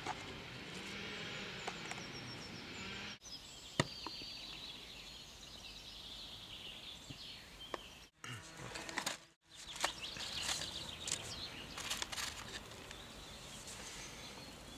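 Open-air countryside ambience with birds chirping and calling, and a single sharp click about four seconds in. The sound cuts out abruptly twice a little past the middle.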